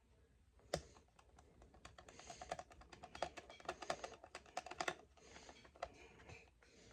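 Faint light clicks of a small screwdriver turning the battery-cover screw on a plastic TrackMaster toy engine: one sharper click under a second in, then a run of quick, uneven ticks.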